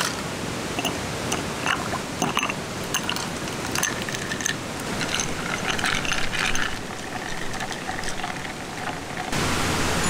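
Ice cubes dropped into a cut-crystal glass and stirred with chopsticks, clinking and rattling against the glass in many short, ringing clicks, over the steady rush of running stream water.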